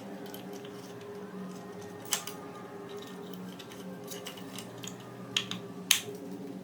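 Small plastic clicks and taps from a CCTV camera housing being handled and closed, with a louder sharp click about two seconds in and two more near the end, over a steady low hum.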